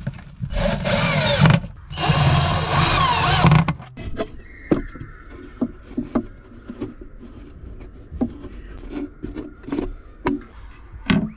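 Cordless drill/driver driving self-tapping screws through a metal drawer slide into plywood: two runs, about one and two seconds long, the motor's pitch rising and falling as each screw goes in. After that come scattered light clicks and knocks from fitting a gas strut to a hinged plywood lid.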